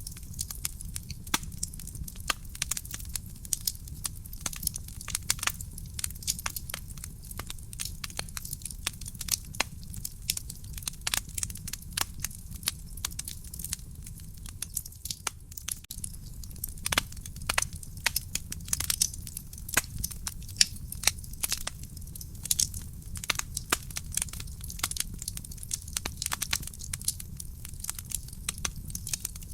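Wood fire burning in a fireplace: dense, irregular crackling and popping over a steady low rumble of the flames.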